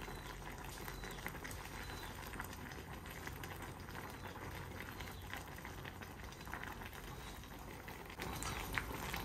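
A pot of broth with vegetables boiling on a gas stove: a steady bubbling, with a few light taps as chopsticks stir the pot.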